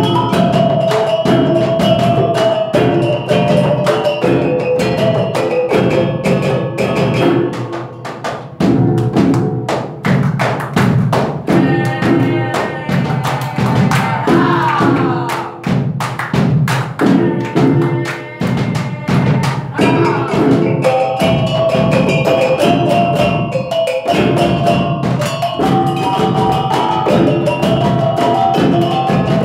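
Caklempong ensemble playing: rows of small bronze kettle gongs struck with sticks in a fast interlocking rhythm, over drums. Around the middle of the passage the players clap their hands in rhythm before taking up the gongs again.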